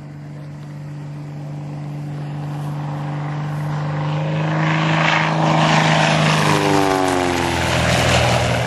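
1956 Cessna single-engine light plane on a low pass. The propeller and engine drone grows steadily louder as it approaches, peaks as it flies by about seven seconds in, and then falls in pitch as it goes away.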